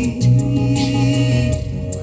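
A rock band playing live: held low notes under evenly repeated sharp high strikes.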